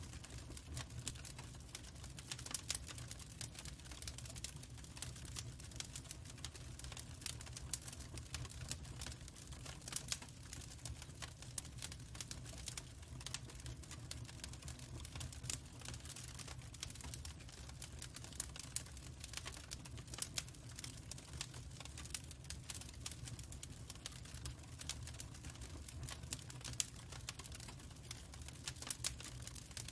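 Birch logs burning, crackling with irregular sharp pops and snaps, some louder than the rest, over a steady low rumble of the fire.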